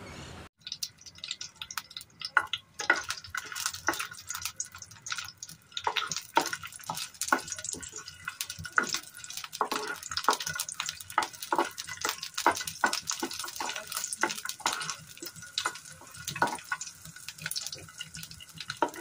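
Garlic cloves and dried red chillies frying in hot mustard oil in a pan, with many quick irregular pops, while a spatula stirs them and scrapes the pan.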